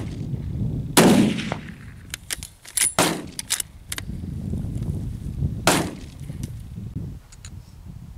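Two shots from a .30-06 hunting rifle fitted with a clamp-on muzzle brake, about a second in and again nearly five seconds later, each a sharp crack with a short decaying tail. Between them comes a quick run of metallic clicks and clacks as the bolt is worked to chamber the next round.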